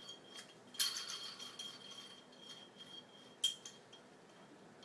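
Light metallic clinks of small engine parts being handled: one clink about a second in with a brief ring after it and a sharper one near the end, over a faint steady high whine.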